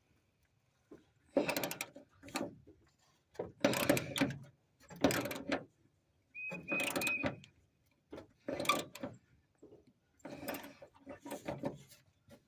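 Hand ratchet wrench clicking in short bursts of strokes with pauses between, about six bursts, as bolts are tightened, with a short high squeak about seven seconds in.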